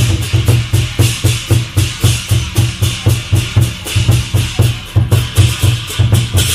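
Lion dance percussion: a large drum beating a fast, steady rhythm of about three strokes a second, with cymbals clashing over it.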